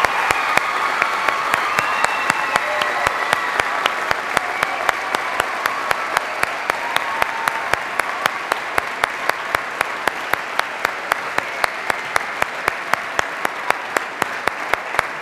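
A large audience applauding steadily, with one pair of hands clapping close to the microphone in an even rhythm of about three claps a second; the applause eases off slowly.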